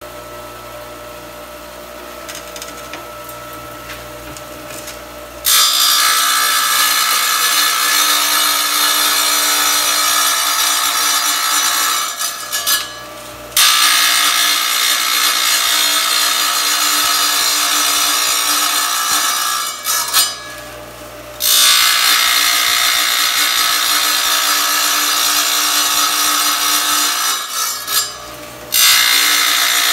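Tabletop tile saw, its motor first running unloaded with a steady hum. Then the blade grinds loudly through a tile in a series of passes, each about six or seven seconds long, with short breaks in which the motor runs free. These are repeated relief cuts made into the tile toward a traced circle so that the circle can be cut out.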